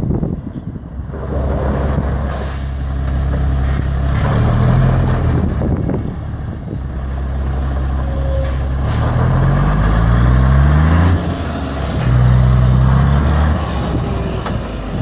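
DAF 95.380 ATi tractor unit's straight-six turbo diesel running as the truck is driven, the engine note rising steadily about two-thirds of the way through and then dropping off suddenly.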